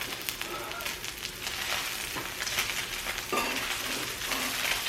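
Pork belly (samgyeopsal) sizzling as it grills, with a steady fry and many small crackles and pops of fat.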